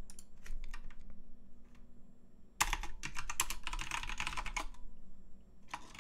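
Typing on a computer keyboard: a few scattered keystrokes, a short pause, then a quick run of keystrokes from about two and a half seconds in, and a few more near the end.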